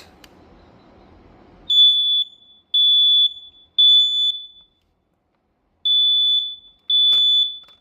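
Quell PI9010 dual-sensor smoke alarm sounding on test: loud, steady high-pitched beeps of about half a second each, three in a row, a pause, then the next group starts, the three-beep pattern of a smoke alarm. A brief click comes during the last beep.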